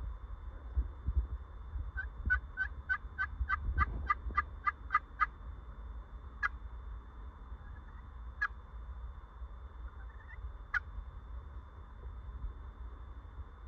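Wild turkey yelps: a run of about eleven evenly paced yelps, roughly three a second, then three single calls a couple of seconds apart.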